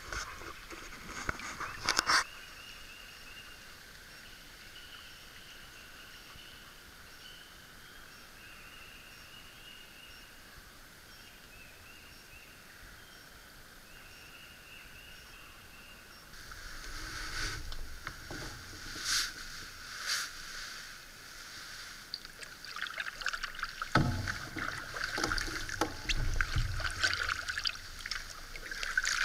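Paddling an Old Town Pack solo canoe: paddle strokes in the water with sharp knocks of the paddle against the hull. It is mostly quiet for the first half, and the strokes and splashing build up over the last third.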